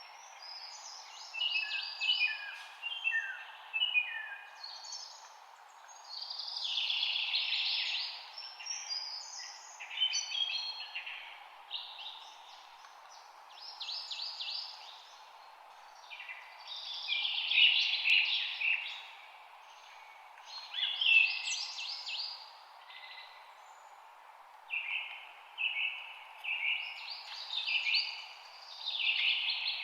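Songbirds singing in phrases of quick, repeated chirping notes, coming in bursts every few seconds, over a steady low background hiss.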